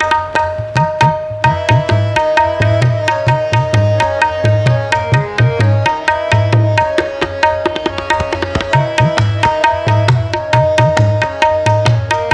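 Instrumental kirtan interlude: two harmoniums play the melody over fast, even tabla strokes, with low bass-drum strokes that bend in pitch.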